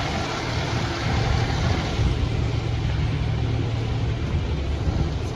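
Fire truck engines idling with a steady low rumble, under a constant hiss of water noise.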